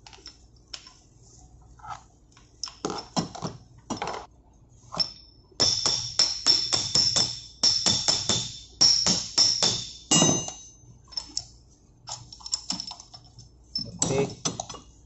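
A steel-headed hammer strikes a spanner to break loose the union nut of a main engine's fuel oil high-pressure pipe. A few scattered knocks come first, then a fast run of ringing metal-on-metal strikes, about three a second, lasting some five seconds. Metal parts clink near the end.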